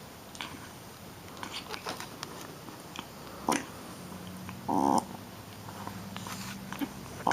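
Shih Tzu puppy playing, with scattered small clicks and scuffs of paws and teeth. It gives one short pitched yip about five seconds in, then a low steady growl.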